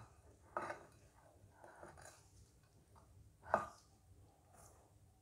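Silicone spatula scraping coarsely ground green chili sambal out of a stone mortar and onto a plate: a few short, faint scrapes, the loudest about three and a half seconds in.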